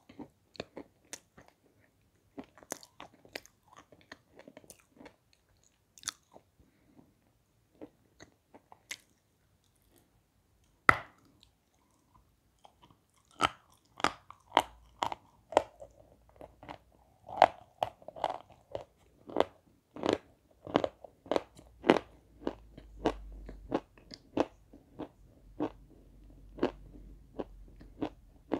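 Edible chalk dipped in wet red clay being bitten and chewed close up, with crisp crunches. The crunches are sparse at first, then comes one sharp, loud bite about eleven seconds in, followed by steady, rapid crunching.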